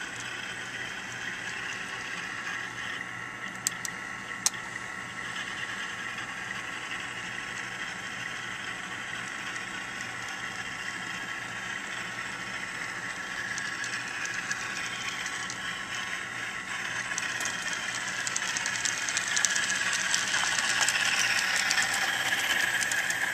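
Model train running on a layout: a steady whirring and rattling of motor and wheels on track, growing louder as a black model steam locomotive passes close by near the end, with fine rapid clicking at its loudest. Two sharp clicks about four seconds in.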